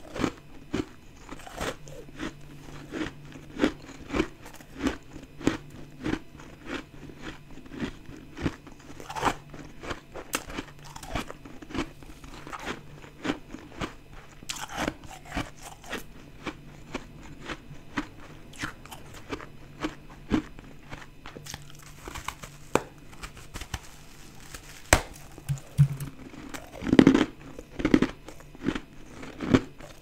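Close-miked biting and chewing of a lump of fluffy white ice: a steady run of soft crunches, about one to two a second, with a louder burst of crunching about 27 seconds in.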